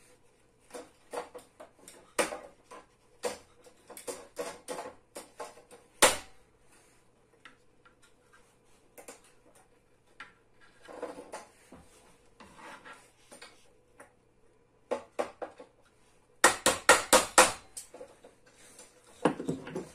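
Metal spanner clinking and clicking against the nut and bolt at the hub of a plastic table base. Scattered clicks and knocks, then a quick run of loud clicks about three-quarters of the way through.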